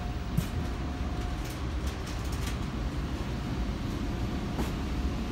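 Inside a T1 subway car: the car's steady low rumble, with a faint steady tone in the first second and scattered light clicks and rattles.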